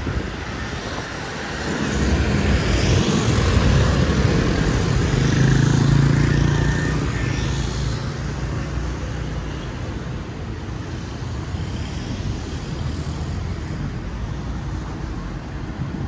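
City road traffic: motor scooters and cars driving past on a wide street. It swells as a vehicle goes by with an engine hum from about two to seven seconds in, then settles to a steady traffic rumble.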